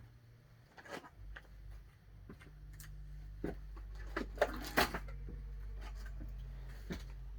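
A series of small clicks and light knocks, the loudest two close together a little past the middle. A low steady hum comes in about a second in.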